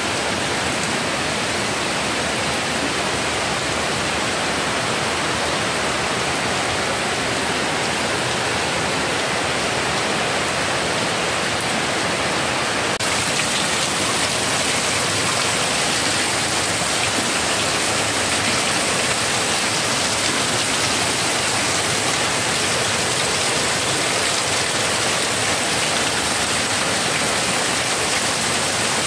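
Heavy monsoon rain falling on floodwater, with streams of runoff pouring down close by. It is a steady, even hiss that turns brighter and a little louder about halfway through.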